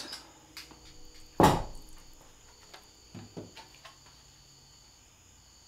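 Hand tools being picked up and set down on a wooden workbench: one loud knock about a second and a half in, then a few light clicks and clatters.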